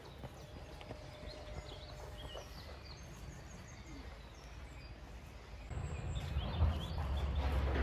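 Outdoor background with birds chirping faintly, then about six seconds in a louder low rumble sets in.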